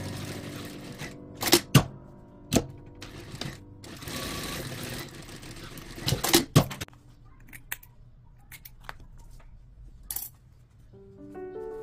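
Sharp clicks, snips and rustling as a sewn fabric piece is handled, its thread cut with scissors, and taken out from under the presser foot of an industrial sewing machine. Background music comes back in near the end.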